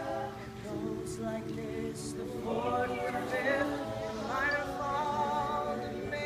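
Mixed a cappella ensemble of men and women singing together in close harmony: held chords with wavering voices, and a higher voice rising and gliding over them from about halfway through.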